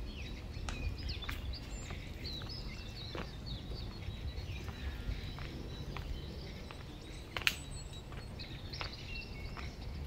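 Outdoor ambience with small birds chirping and twittering in short calls, over a steady low rumble. Scattered sharp clicks sound through it, the loudest about seven and a half seconds in.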